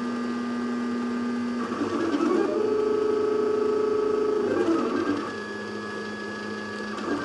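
Wooden-frame 3D printer's stepper motors whining as it prints a spiral-vase column, a steady tone that holds one pitch for about two seconds at a time and then shifts as the moves change.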